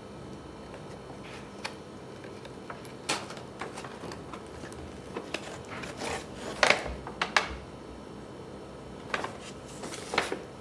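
Handling noises from unboxing a toy remote control car: scattered clicks, taps and light knocks of packaging and plastic parts, with a louder cluster of knocks about seven seconds in.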